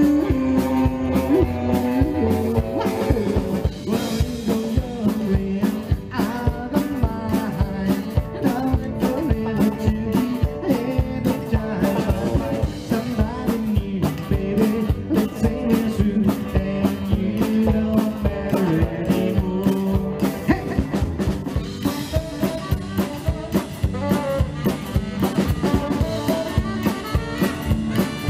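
Live rockabilly band playing an instrumental break: electric guitar lead over upright bass and a drum kit keeping a steady beat.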